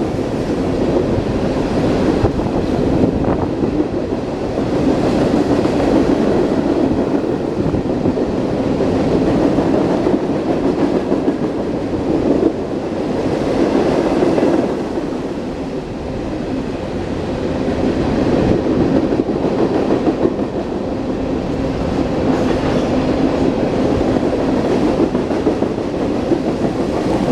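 Norfolk Southern freight train rolling past at speed, a loud, steady run of wheel-and-rail noise with clickety-clack over the rail joints.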